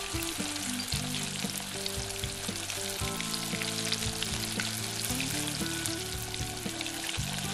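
Chicken gizzard gravy sizzling and bubbling in a nonstick pan on low heat, freshly thinned with a cup of water, with a spatula stirring through it partway through. Soft background music with held low notes plays underneath.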